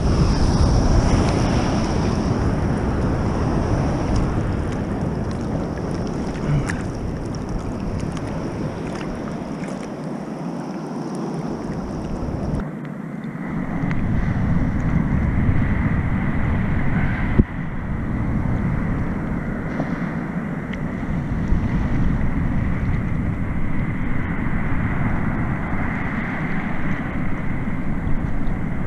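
Ocean surf and water washing around a camera held at the water's surface, with wind on the microphone. The noise changes character a little before halfway through, and there is a single sharp knock a little past halfway.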